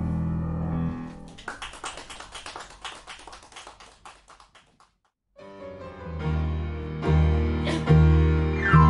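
Live acoustic jazz: piano and double bass. A held low chord gives way to a quick, fading run of notes, and after a sudden brief silence about five seconds in, a new passage starts with walking double-bass notes under piano chords.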